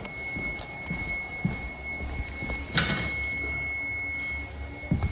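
A sharp clunk about three seconds in and a few lighter knocks from handling. Underneath is the low hum of a running boiler and a steady high-pitched tone.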